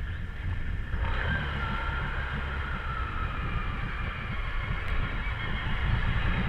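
Can-Am Renegade ATV engine running under load as its 31-inch Outlaw mud tires churn through deep swamp water. It gets louder about a second in.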